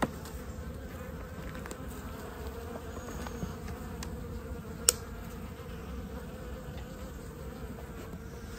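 Honeybees buzzing in an opened hive, a steady hum, with a few light clicks and one sharper click about five seconds in.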